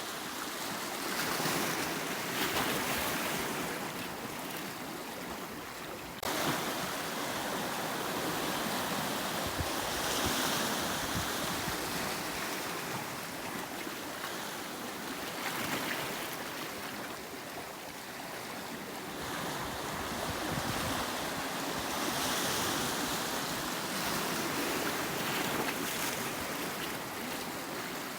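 Sea waves breaking and washing on a rocky shore: a continuous rush of surf that swells and eases every few seconds, with a sudden rise in level about six seconds in.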